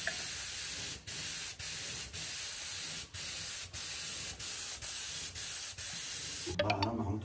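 Small gravity-cup airbrush spray gun hissing as it sprays touch-up paint onto a front door, released and pulled again in short bursts about twice a second. The spraying stops about six and a half seconds in.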